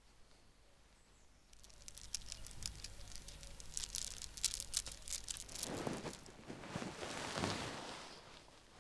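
A clinking, rattling sound effect of many quick clicks with a bright metallic shimmer, starting about a second and a half in and lasting some four seconds, then a swelling whoosh that fades away near the end.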